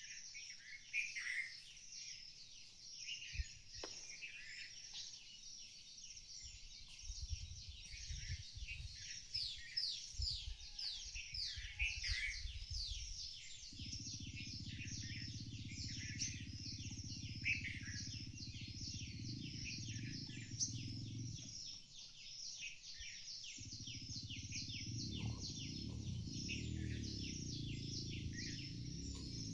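A flock of birds chirping all together, many quick overlapping chirps in a continuous chorus. A low rumble comes in about halfway through, breaks off briefly, and returns near the end.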